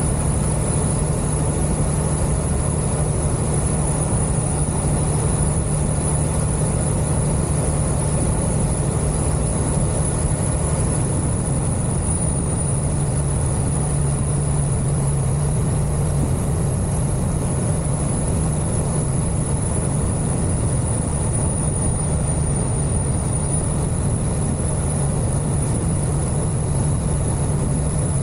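Detroit diesel engine of a loaded semi-truck running steadily while cruising, a constant low drone with no shifts or revving.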